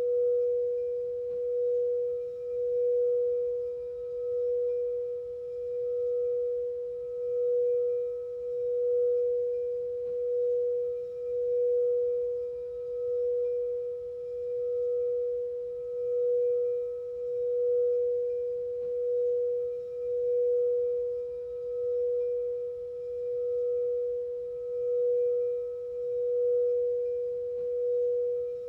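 Singing bowl holding one sustained, steady note with faint higher overtones, its loudness swelling and fading in a slow regular pulse about every second and three quarters.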